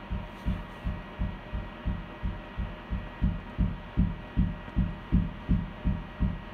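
Low thuds repeating steadily about three times a second: a head being banged over and over against a wall. A faint steady hum lies underneath.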